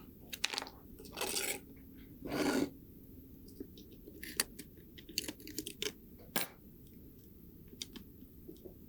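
Small parts of a diecast model car being handled on the bench: two short scraping rubs, then a scatter of light clicks and taps.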